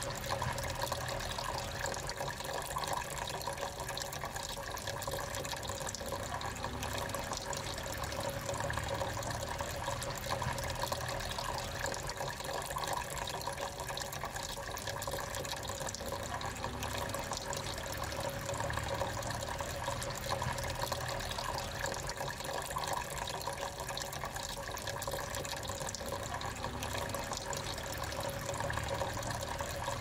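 Small tabletop water fountain running, water trickling and splashing steadily from spouted pots down into its basin.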